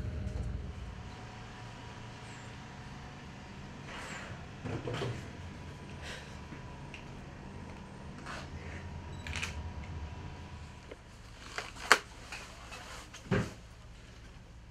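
Scattered clicks and knocks of handling and movement in a small room, the loudest a sharp click near the end followed by a dull thump.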